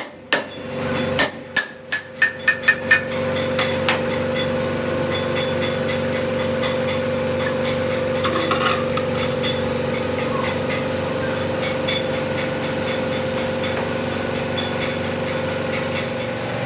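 Hammer blows on steel with a high ringing note: about eight quick strikes in the first three seconds. After them a steady workshop machine hum.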